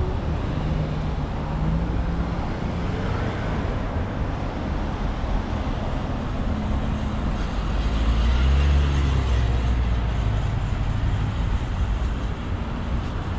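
Road traffic: vehicle engines running with a steady low rumble, one growing louder about eight seconds in and then easing off.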